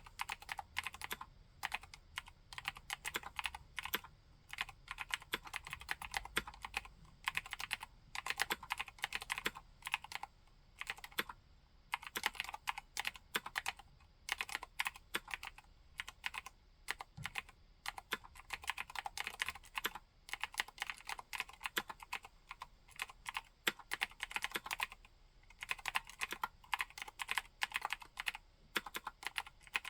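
Continuous typing on a 60% mechanical keyboard with Cherry MX White switches and MT3-profile keycaps: rapid runs of key clicks and bottom-outs, with a few short pauses between bursts.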